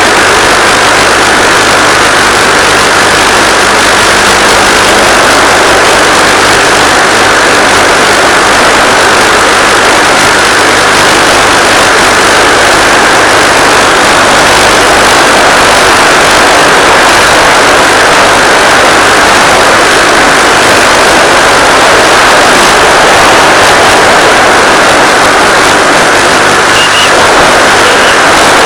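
Loud, steady rushing noise with a faint low hum underneath, unchanging throughout, carried on the audio of the Finwing Penguin's 1.3 GHz FPV video link.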